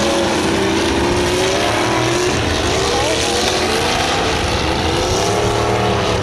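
Several demolition derby cars' engines revving, their pitches rising and falling over one another, loud and continuous over a steady wash of noise.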